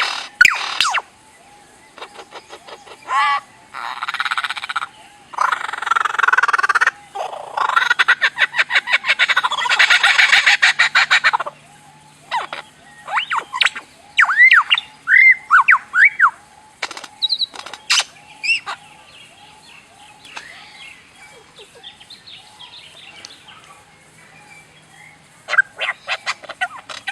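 A run of different bird calls one after another. Rapid, harsh chattering fills the first half, then separate whistled notes rise and fall, and softer chirping comes near the end.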